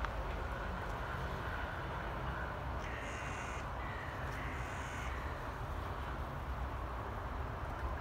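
Crows cawing from a flock in a treetop, two calls about three and four seconds in, over a steady low rumble.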